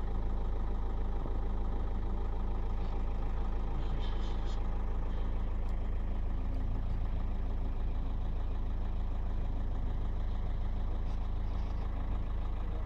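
Steady low rumble of a running vehicle engine, with a few faint ticks about four seconds in.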